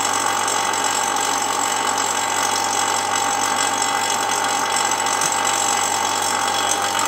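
Vacuum pump for a CNC vacuum table running steadily while it holds a plastic sheet down on the bed: a loud, even mechanical noise with a constant whine.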